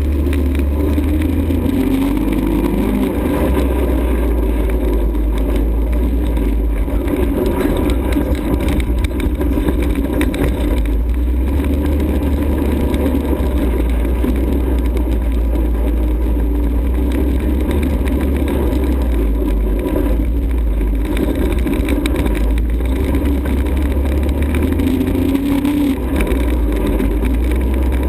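ATV engine running continuously while being ridden, its pitch wavering slightly up and down with the throttle.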